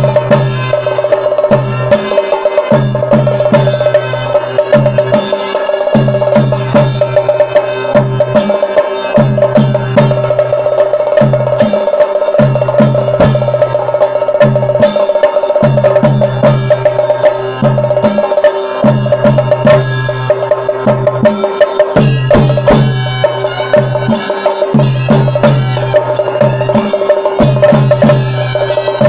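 A chende drum ensemble, cylindrical drums beaten with sticks in a fast, continuous rhythm, with a steady droning tone held underneath.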